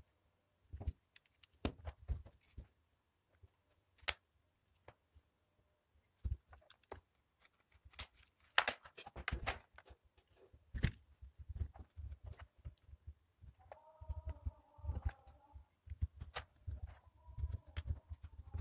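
Plastic LEGO Technic parts being handled and fitted together: irregular small clicks, knocks and table taps as pins and pieces are pushed into place and set down. A faint wavering tone comes in briefly near the end.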